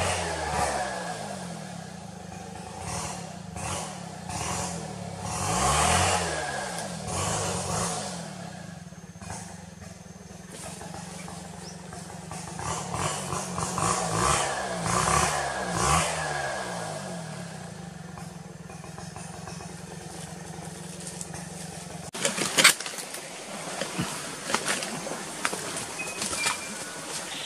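Two-stroke chainsaw engine running and revving up and down as it cuts wood, then cutting off suddenly about four-fifths of the way through. After that come rustling and crunching footsteps on dry leaf litter, with one sharp snap.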